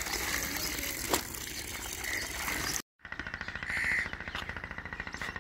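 Water splashing and dripping as wet laundry is wrung out over a bucket. After an abrupt break, a fast, even pulsing of several beats a second, like a distant machine running.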